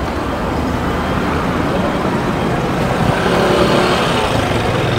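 Busy street-market ambience: a steady wash of noise with a motor scooter running past, rising a little about three seconds in, and a faint murmur of voices underneath.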